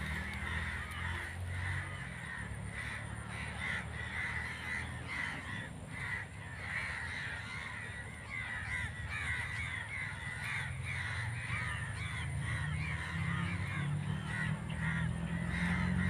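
Crow calls: harsh caws repeated again and again.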